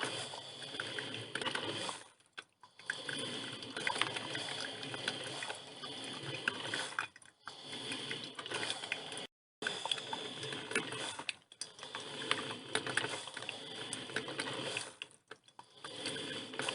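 Drip filter coffee machine brewing: hot water gurgling and sputtering with a dense crackle of small pops. The sound breaks off briefly a few times, then resumes.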